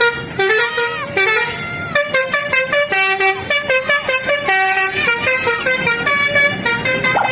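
A bus's telolet Basuri multi-tone horn playing a fast melody of short, stepped notes.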